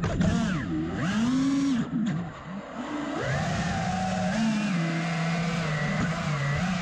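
Brushless motors of a 5-inch FPV quadcopter (TBS Grinder V2 2207 1850kv on 6S) whining as they are throttled in flight, heard close up from the onboard camera. The pitch keeps rising and falling with throttle, dipping and going quieter for a moment about two seconds in.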